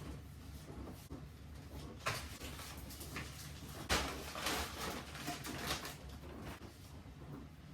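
Household handling sounds: a few light knocks and rustles, with a sharp knock about four seconds in followed by a second or so of rustling.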